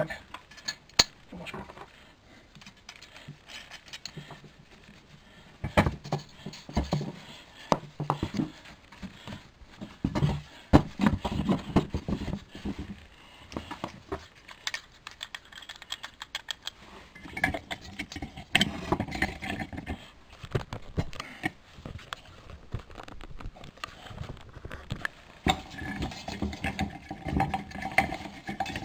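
Irregular clicks, knocks and light clinks of hand assembly: pine lamp parts knocking together, with metal washers and nuts handled on a wooden workbench as the pieces are bolted together.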